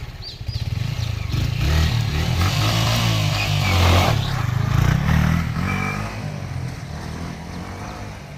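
Motorcycle engine running under way. Its low drone grows to its loudest about four seconds in, then fades away.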